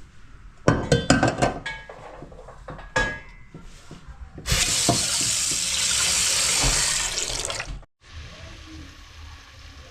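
Kitchenware clinking and knocking with short ringing tones, then a kitchen tap running in a steady stream for about three seconds, which cuts off suddenly.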